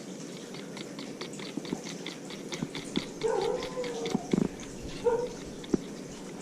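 A domestic animal giving two short whining calls, amid light clicking and a few knocks.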